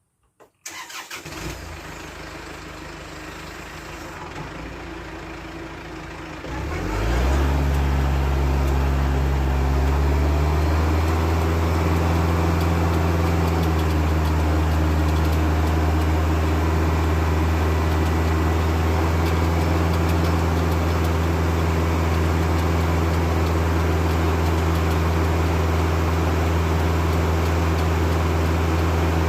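Kubota tractor's diesel engine starting up and running lower for a few seconds, then revving up about seven seconds in and holding a steady high speed to drive the sawmill.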